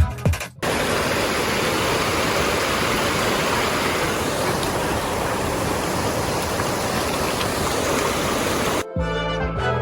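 Steady rush of falling water from a mountain stream, filling the sound evenly. It cuts in sharply just after the start and stops abruptly about a second before the end, with music on either side.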